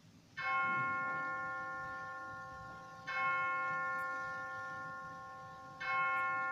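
A bell struck three times, about two and a half seconds apart, each stroke ringing with several clear tones and fading slowly; it is rung at the elevation of the consecrated bread and cup.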